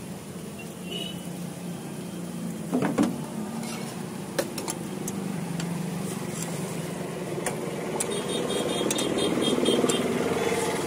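Steady street-traffic hum with sharp clicks and a short rapid scraping near the end: a metal spatula tapping and scraping across a flat iron griddle as a crispy dosa is loosened and lifted.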